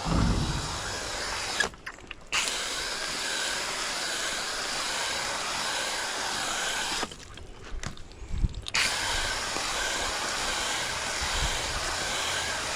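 Hose-end sprayer spraying coil cleaner onto a heat pump's outdoor coil: a steady hiss that stops briefly about two seconds in and again for over a second around seven to eight seconds, with a low thump or two.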